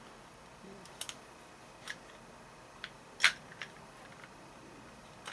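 A handful of sharp metallic clicks and clacks from an AR-15 rifle being handled, most likely the upper and lower being worked apart. The loudest clack comes about three seconds in.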